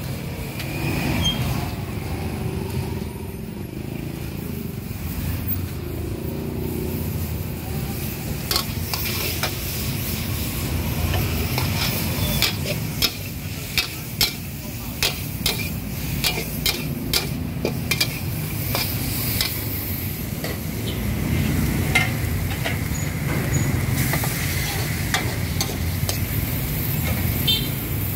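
Food frying in a large aluminium wok, sizzling, while a metal ladle scrapes and clanks against the wok many times through the middle stretch. A steady low rumble runs underneath.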